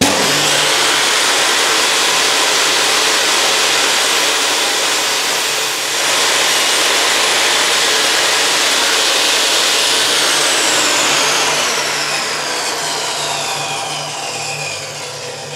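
Bosch GTS 254 table saw's 1,800 W motor starts abruptly and runs at full speed while the blade crosscuts a wooden board at 90 degrees. After about ten seconds it is switched off and coasts down, its whine falling in pitch.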